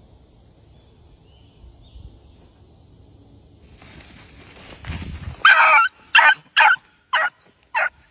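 Beagle puppy barking in a quick run of about five short, high-pitched barks, starting about halfway through after a few seconds of faint rustling. This is the puppy giving tongue as it goes after a rabbit.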